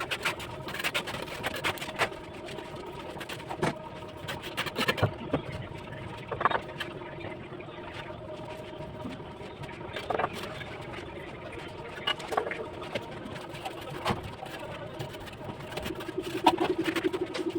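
Bricklaying work: a trowel and bricks giving sharp, scattered taps and knocks, about one every second or two.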